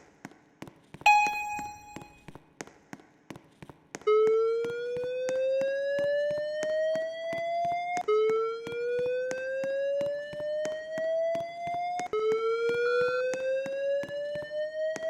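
Airport fire alarm evacuation system sounding. A single steady electronic alert tone lasts about a second, then from about four seconds in comes a repeating slow whoop: a tone rising in pitch over about four seconds, then dropping back and rising again, three times. Faint regular clicking runs underneath.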